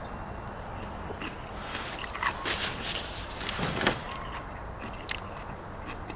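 A person chewing crunchy snack food, with small scattered clicks and a cluster of crunching noises about two to four seconds in.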